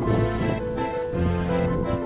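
Background music: a melodic instrumental tune with sustained notes.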